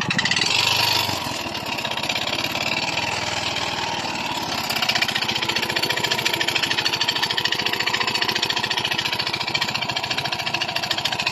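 Yamaha Mio i 125 scooter's single-cylinder engine running with a rapid, steady metallic clatter. This is piston slap from a worn piston rattling in the old cylinder block.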